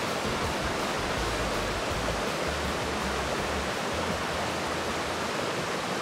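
Mountain stream water rushing, a steady even noise.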